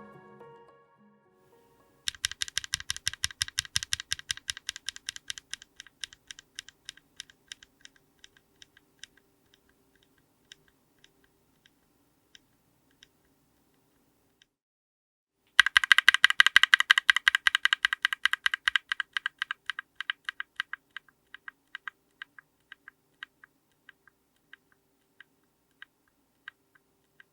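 Typing on a mechanical keyboard with stock Chosfox x JWK DD linear switches in an FR4 plate: two runs of rapid key clicks, each starting fast and dense, then slowing to scattered single keystrokes.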